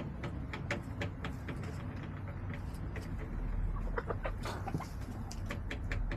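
Backyard hens clucking with a few short low notes about four seconds in, amid scattered sharp taps and clicks, over a steady low rumble.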